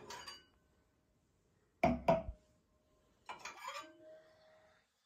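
Stemmed glass wine glasses being set down and knocking against each other: a few sharp clinks, two close together about two seconds in and another about three and a half seconds in, the last one leaving a short glassy ring.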